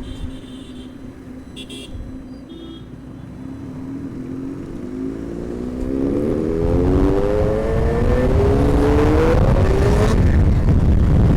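Motorcycle engine ticking over steadily, then revving up in one long rising pull of about five seconds as the bike accelerates away. Near the end, a loud rush of wind noise takes over.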